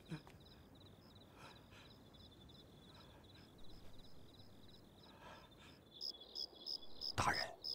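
Crickets chirping steadily in faint night ambience, a quick even trill of high chirps that grows stronger toward the end. Near the end comes a brief, louder rustling sound.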